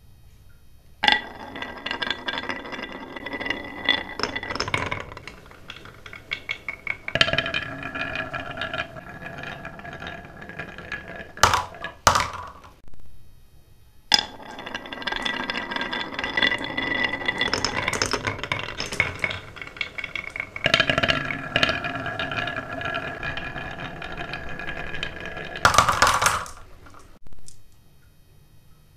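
Marbles rolling and clattering down a wooden marble run, in two long runs with a short pause about halfway, full of clicks and ringing clinks as they hit the track and each other.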